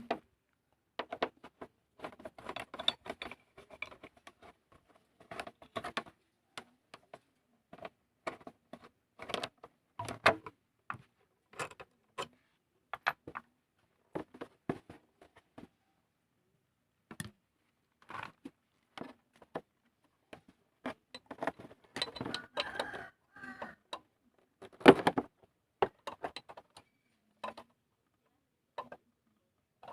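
Irregular clicks, clatters and knocks of hand work on a small motorcycle, plastic cover parts being unlatched and metal parts and tools handled, with one louder knock late on.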